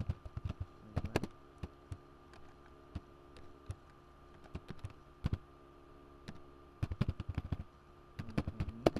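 Typing on a computer keyboard: irregular runs of quick keystrokes with short pauses between them, over a faint steady hum.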